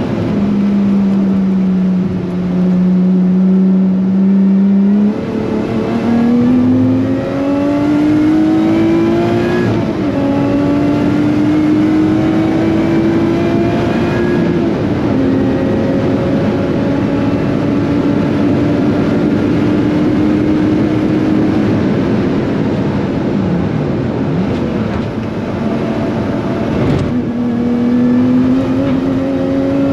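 Lotus Exige Cup 430's supercharged 3.5-litre V6 running hard on track, its note climbing steadily and dropping sharply at each upshift, with a held stretch in the middle. Near the end it briefly falls away, then pulls up again.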